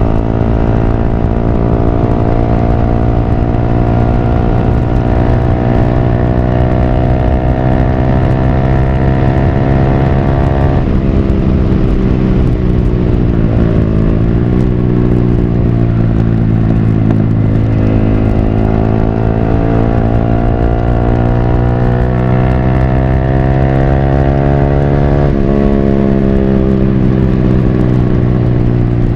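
Yamaha R15 V3's single-cylinder engine running through a Villan Pro1 full-system aftermarket exhaust while riding. The exhaust note climbs slowly in pitch, falls off about eleven seconds in and wavers, then climbs again. It steps down sharply a few seconds before the end.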